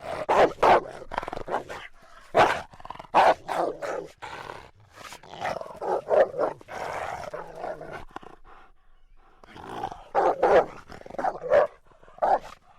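Animated-film dogs barking and growling: a run of sharp barks, a longer growl in the middle, a short pause, then more barks.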